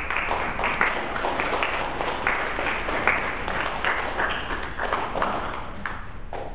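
A small audience applauding, many quick hand claps together, tapering off near the end.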